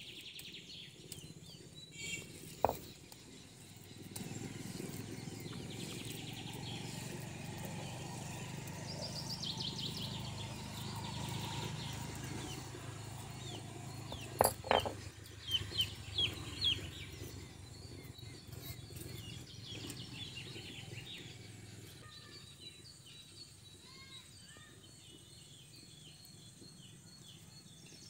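Stone muller rubbed back and forth on a flat grinding stone, grinding turmeric into a wet paste: a steady gritty scraping that fades in the last few seconds. A few sharp knocks come around the middle, and chickens cluck in the background.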